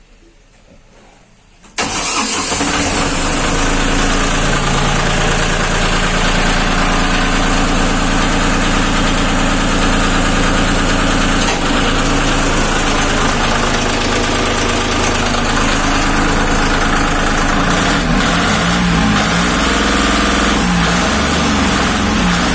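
A three-cylinder Lister Petter diesel engine fires up about two seconds in and then runs steadily, with a shift in its note about three-quarters of the way through.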